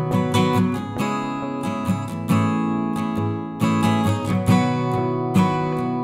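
Background music: an acoustic guitar strumming chords.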